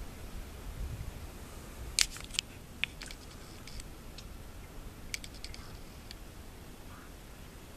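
Sharp clicks from handling a handheld camera: three about two to three seconds in and a quick cluster about five seconds in, over a low rumble of wind on the microphone.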